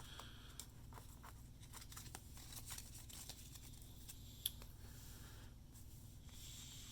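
Faint handling of baseball cards and a foil pack wrapper: soft rustles and light clicks, with one sharper tick about four and a half seconds in.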